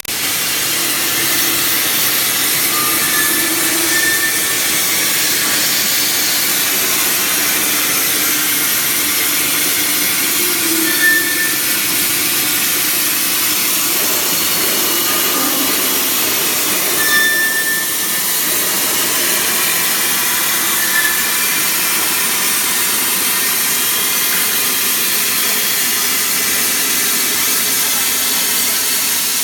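CNC plasma cutter torch cutting 12 mm stainless steel plate: a loud, steady hiss of the plasma arc, with a few short high whistles.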